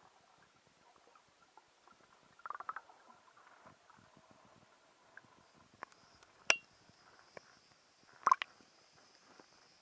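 Muffled underwater sound picked up through an action camera's waterproof housing: faint gurgling with scattered sharp clicks and crackles, one loud click about six and a half seconds in. A burst of clicks and splashing comes a little after eight seconds, as the camera breaks the water surface.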